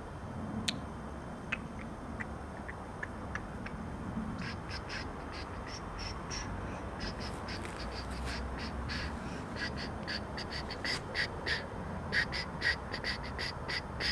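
Birds calling, crow-like caws: short repeated calls over a steady low background, starting about four seconds in and coming thicker and louder toward the end.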